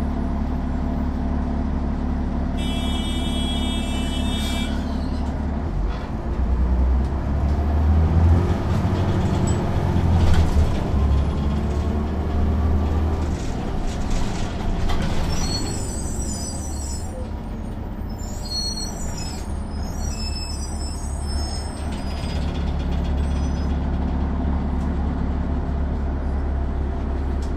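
Cummins C8.3 diesel of a 1995 Nova Bus RTS, heard from inside at the rear. It idles steadily, with a short electronic chime about three seconds in. Then it revs up, climbing in pitch, as the bus accelerates. Several bursts of air-brake hiss follow, before it settles back to a steady idle near the end.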